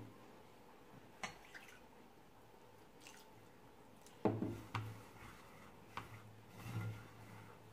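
Faint scratching and rubbing of hands rolling damp couscous grains on a ceramic plate. A few light clicks and knocks stand out, the loudest about four seconds in.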